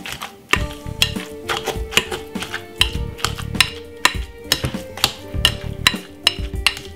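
Background music, over repeated knocks of a metal potato masher in a glass bowl as boiled sweet potato is mashed.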